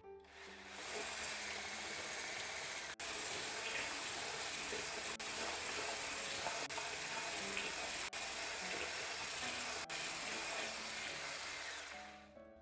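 Water running steadily from a kitchen tap, fading in at the start and out near the end.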